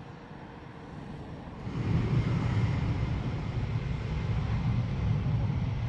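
Jet airliner engines running. The deep rumble rises sharply about two seconds in, then holds steady and loud.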